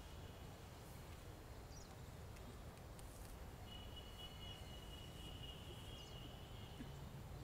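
Faint outdoor background: a steady low hum, joined about four seconds in by a thin, steady high tone that lasts about three seconds, such as an insect or bird makes.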